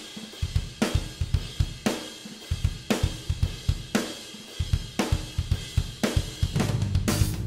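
Raw multitrack recording of an acoustic drum kit playing a pop punk beat: kick, snare and hi-hat on a steady pulse, with a cymbal crash about once a second. Near the end a clean DI bass guitar joins in.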